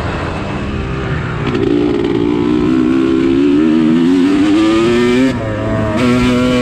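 Motocross dirt bike engine accelerating hard. Its pitch climbs steadily for several seconds, drops abruptly at a gear change about five seconds in, then climbs again.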